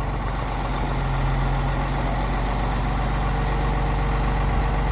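A crane's engine running steadily with a low, even hum while it lifts a ride's jet car.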